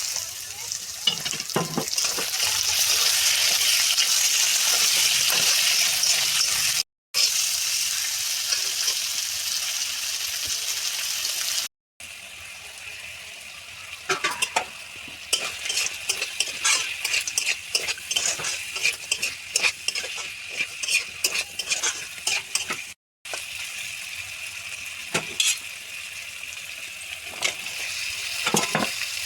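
Food sizzling in hot oil in a pan, with a spoon scraping and clinking against the pan as it is stirred, the scrapes coming thick and fast in the second half. The sizzle drops out briefly three times.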